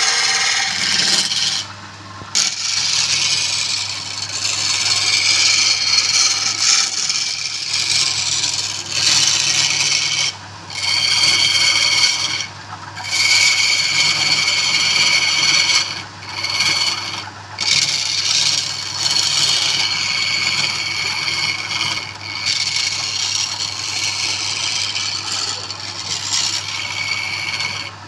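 A tool working wood, a steady high scraping that stops briefly several times as the tool comes off the work, over a constant low motor hum.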